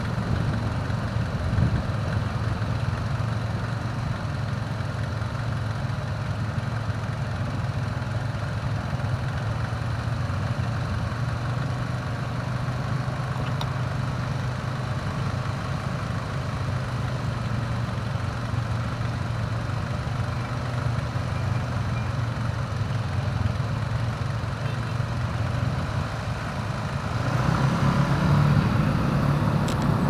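Motorcycle engines idling at a standstill in traffic, a steady low hum. About three seconds before the end it grows louder as the engines pick up and the traffic pulls away.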